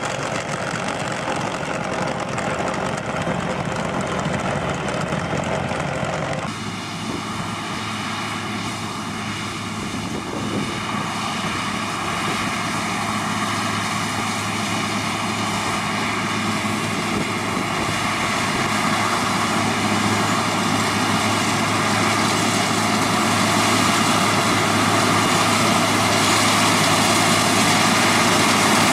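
A tractor running a PTO-driven rotary ditcher as it cuts a trench through turf. About six seconds in, this gives way abruptly to a John Deere combine harvester running steadily as it harvests, its drone growing louder as it draws near.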